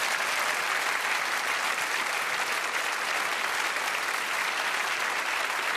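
Studio audience applauding, a dense, even clapping at a steady level.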